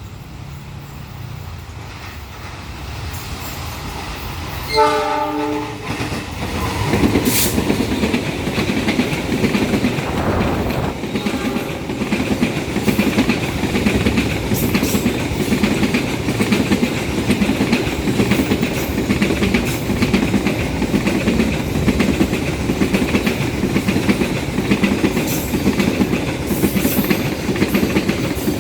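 A diesel-hauled container freight train approaches and its locomotive sounds one horn blast of about a second. The wagons then pass close by with a steady rhythmic clickety-clack of wheels over rail joints.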